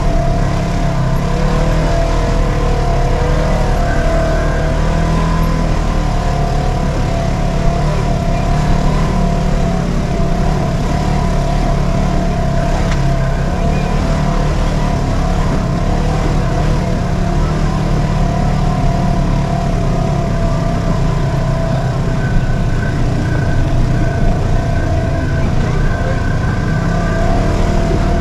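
Polaris RZR 1000 side-by-side engine running steadily under way on the trail, with a steady whine over the engine note.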